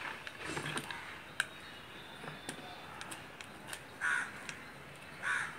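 Faint clicks and rustles of rope being worked around a wooden plank, with two short, loud bird calls about a second apart near the end.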